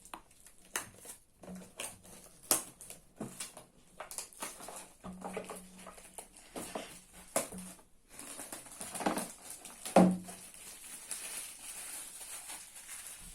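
Hands opening a toy slime-kit's packaging: crinkling and rustling with scattered clicks and taps, a sharper knock a couple of seconds in and a louder one near the end.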